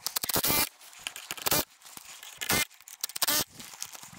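Milwaukee cordless drill run in four short bursts against a wooden utility pole, the first the longest at about half a second, with scraping between bursts.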